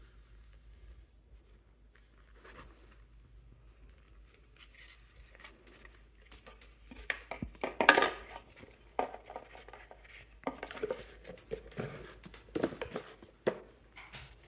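Hands handling a cloth dust bag, a small cardboard gift box and a leather card holder on a countertop: faint rustling at first, then from about six seconds a string of quick taps, scrapes and knocks as the box and card holder are set down, loudest about eight seconds in.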